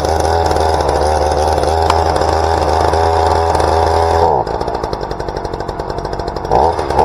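Ryobi 38cc two-stroke gas chainsaw just started on the choke, running fast and steady. About four seconds in it drops to a lower, uneven running, with a brief rev near the end as it falters: the engine hasn't warmed up enough.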